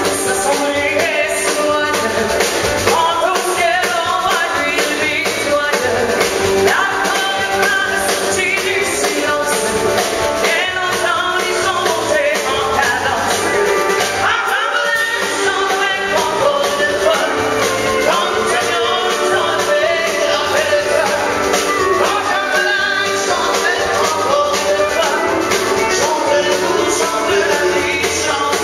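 Live country-western band playing a song, with a woman singing lead over acoustic guitar, drums and pedal steel guitar, at a steady beat.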